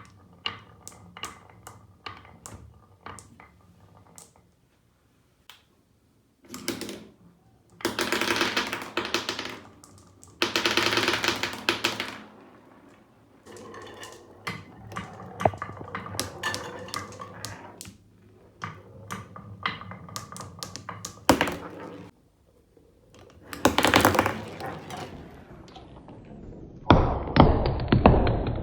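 Marbles rolling and clicking down a marble run track: scattered light clicks, a few seconds-long stretches of dense rattling as marbles roll together, and a fast run of clicks near the end.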